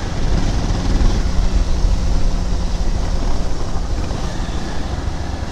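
Motorcycle riding along: a steady engine hum under wind rushing over the microphone.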